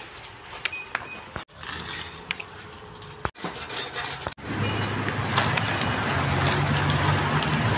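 Coins and small items clinking on a hard store checkout counter, a few sharp ticks over background noise. About halfway through, after a cut, a louder steady background din with a low hum takes over.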